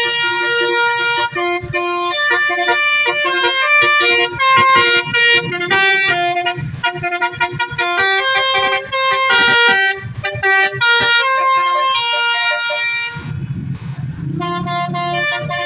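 Telolet multi-tone musical vehicle horn playing a fast melody of stepped notes, each held a fraction of a second. About thirteen seconds in the notes break off for a moment under a low rumble, then the tune starts again.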